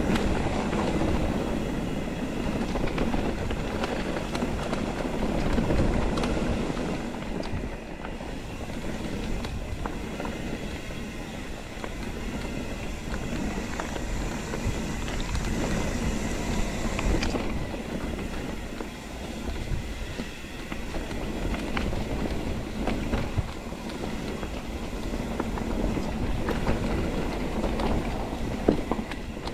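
Mountain bike rolling down a dirt single-track trail: steady tyre rumble over the ground, with the bike rattling and clicking over rough spots.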